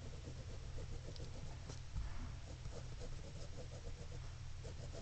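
Faint scratching of pencil strokes on paper, in short irregular ticks, over a steady low hum.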